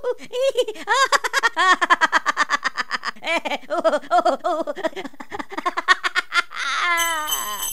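Comic character voice laughing: a long run of high-pitched, bouncing laugh syllables, about three a second, ending in a falling run. A bright tinkling starts near the end.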